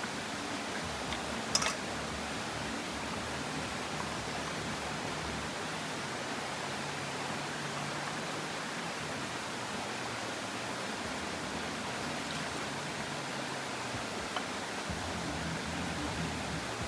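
Steady rushing noise, even and unbroken, with a single sharp click about a second and a half in.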